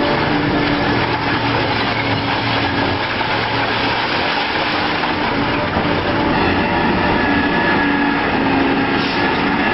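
Heavy machinery running steadily: a loud, even engine-and-machine noise with a faint steady hum.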